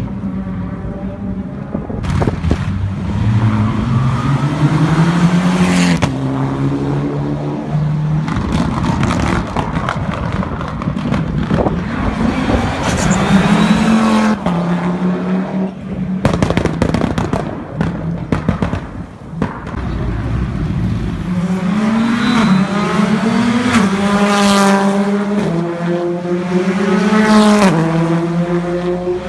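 Rally car engines revving hard, the engine note climbing and dropping with gear changes and lifts off the throttle, broken by clusters of sharp exhaust crackles and pops.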